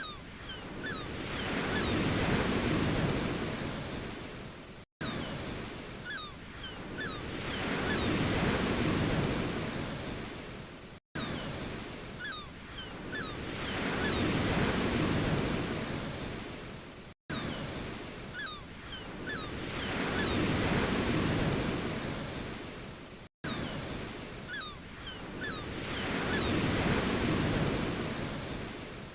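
Ocean waves breaking and washing back, one swell about every six seconds, with faint short high chirps among them. The same short recording repeats as a loop, with a brief dropout to silence between repeats.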